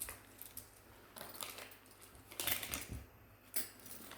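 Small sewing accessories handled on a table: light, scattered clicks and clinks of small hard parts, with a busier cluster a little past halfway.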